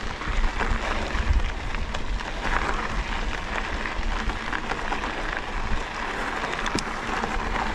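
Mountain bike rolling over a rocky desert dirt trail: tyres crunching on gravel with scattered small clicks and knocks, and wind rumbling on the microphone.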